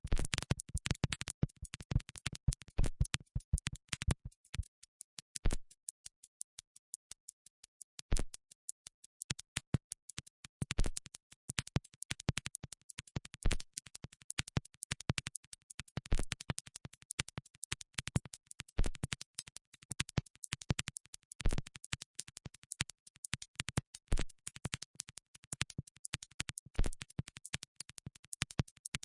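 A rapid, irregular train of sharp clicks and crackles, thinning out for a few seconds about five seconds in, then dense again.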